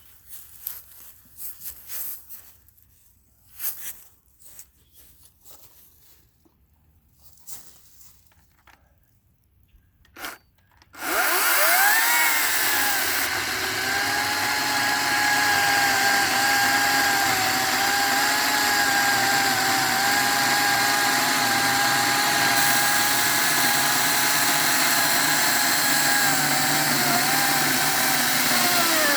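Battery-powered RYOBI 40-volt chainsaw with a 14-inch bar, starting up about eleven seconds in and cutting through a thick old pine log. Its motor whine holds steady for about eighteen seconds, with slight wavers in pitch as the chain bites. It winds down with a falling whine near the end, after faint handling knocks in the quiet first part.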